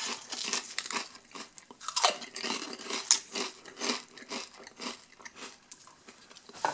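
Someone chewing Lorenz Crunchips paprika potato crisps: a run of irregular dry crunches.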